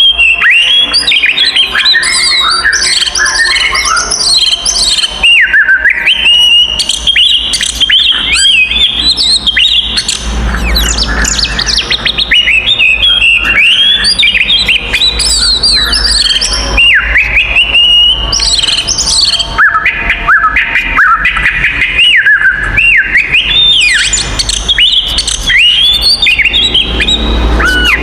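Oriental magpie-robin (kacer) in full, combative song: a fast, unbroken stream of loud, varied whistles, rising and falling slurred notes and sharp chirps.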